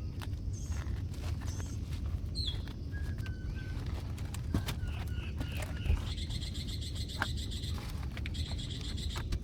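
Wild birds chirping and calling in short high notes, with a rapid trill about six seconds in, over a steady low rumble. A few sharp knocks sound in between, the loudest about six seconds in.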